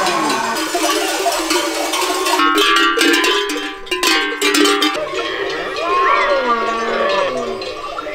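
Livestock bells clanking and ringing as a herd moves, with a burst of quick bell strikes in the middle. The animals call out several times in the second half.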